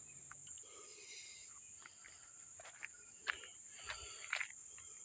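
Steady, high-pitched insect chorus in the woods, with a few short dry crackles and snaps, most of them between about two and four and a half seconds in.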